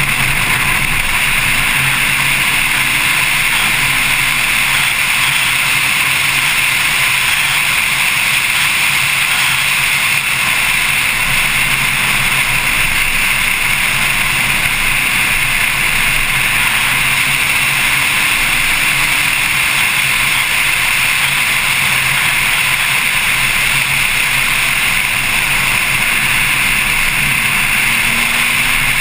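Steady rush of wind and road noise over a camera on the front lid of a Porsche 911 Carrera S at track speed, with the rear-mounted flat-six engine faint beneath it.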